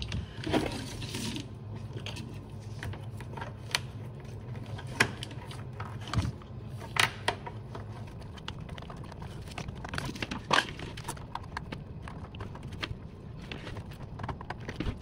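Hands handling and rubbing power cables against the wire track, a rustling and scraping broken by scattered clicks and knocks, over a steady low hum.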